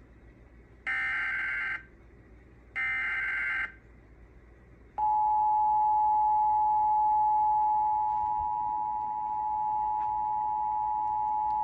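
Emergency Alert System tones from a TV broadcast: two short bursts of the screeching digital SAME header data, then, about five seconds in, the steady two-tone EAS attention signal.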